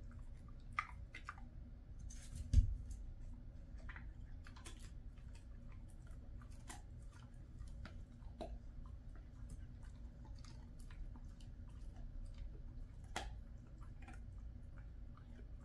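Jindo dog chewing and licking a piece of kangaroo jerky: scattered short wet clicks and smacks, with one loud thump about two and a half seconds in.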